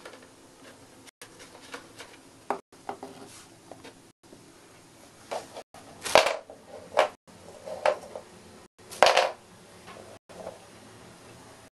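A hard dog biscuit knocking and scraping on a wooden floor as a hamster drags it along: a string of small clicks and clatters, with two louder scuffs about six and nine seconds in.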